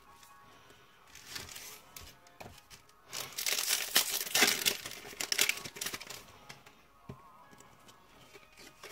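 Foil wrapper of a Yu-Gi-Oh booster pack crinkling and tearing as it is ripped open by hand. There are a few small rustles first, then a loud crackly tearing for about three seconds in the middle, fading to light rustling.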